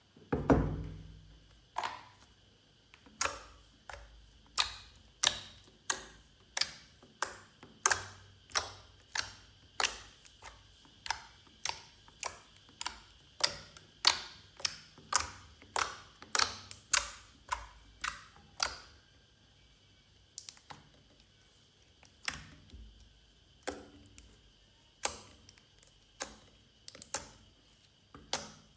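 Glossy slime being squeezed and poked by hand, giving a run of crisp clicks and pops, about one to two a second, that thin out after about 19 seconds.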